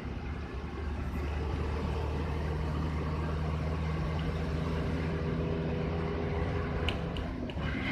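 A moving road vehicle's engine and tyre noise, a steady low drone that firms up about one to two seconds in, with a few faint clicks near the end.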